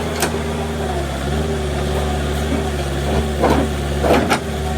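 Heavy diesel machinery engine running steadily, with two brief louder noises near the end.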